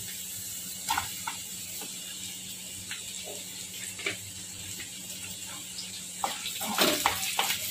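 Oil sizzling steadily in a non-stick kadhai as chopped garlic, ginger and green chilli fry, with onion pieces dropped in and a few light knocks of a wooden spatula. The stirring grows busier near the end.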